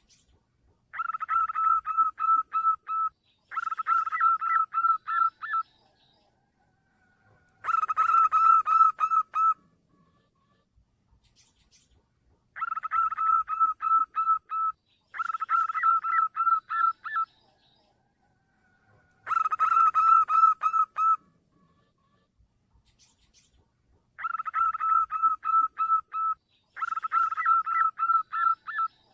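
Zebra dove (perkutut) cooing: phrases of rapid repeated notes, each about two seconds long, about eight of them, coming singly or in pairs with short pauses between.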